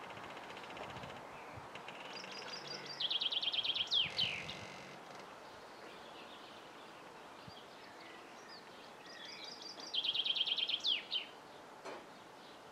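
A songbird singing twice, about seven seconds apart. Each phrase is a fast run of repeated notes stepping down in pitch and ending in a quick downward flourish, over a steady faint outdoor hiss.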